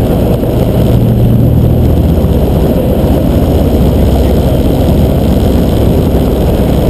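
Flamingo light-sport aircraft's piston engine and propeller droning steadily, heard from inside the cockpit during a landing approach. The engine note drops slightly about two seconds in, then holds.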